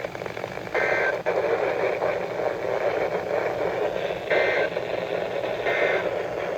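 Weather-radio reception heavy with static during a tropospheric-ducting opening: a steady hiss broken three times by short bursts of two-tone warbling data, the kind of SAME header that opens an EAS alert.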